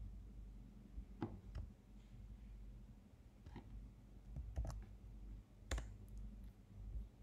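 About six faint, sharp clicks spread out over a few seconds, from someone working a computer's mouse and keys, over a low steady hum.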